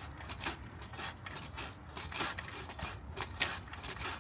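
Manual pole saw blade cutting through a tree branch in quick, repeated rasping strokes, about two or three a second.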